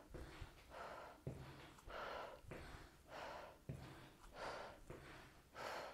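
A woman breathing hard and evenly, about one breath every second, while exercising by walking briskly in place. Faint regular thuds of her steps on the floor come between the breaths.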